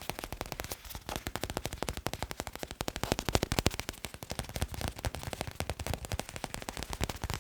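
Fingers tapping fast on a hard object, about ten quick taps a second, rising and falling in loudness.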